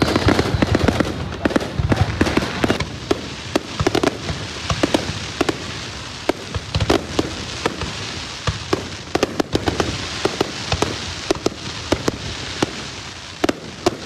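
Aerial fireworks going off in rapid, irregular bangs over the steady noise of a large crowd. The bangs come thick and fast at first and thin out toward the end.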